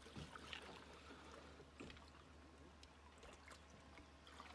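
Near silence, with faint water sounds of a kayak paddle dipping into calm water.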